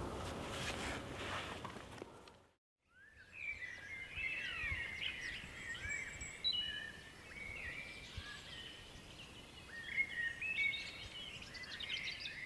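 Several small birds singing in woodland, starting about three seconds in: overlapping high chirps and quick rising and falling trills.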